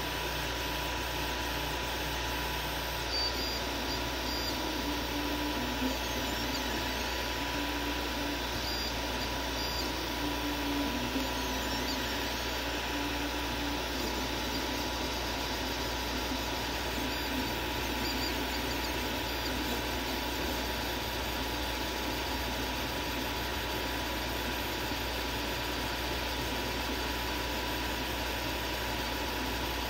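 Tenlog Hands 2 3D printer running a print: a steady fan hiss with a steady whine over it, and the stepper motors giving short humming tones that shift in pitch as the print head moves, mostly in the first half.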